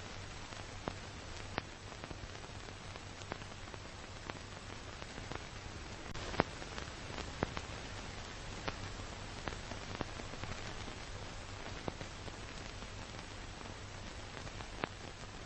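Steady hiss over a faint low hum, broken by irregular clicks and pops, the loudest about six seconds in: the surface noise of a worn analog recording.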